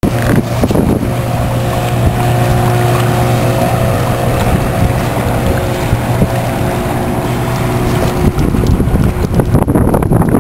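Boat engine running steadily with a low, even hum, mixed with wind buffeting the microphone. About eight seconds in the engine tone fades and the wind noise takes over.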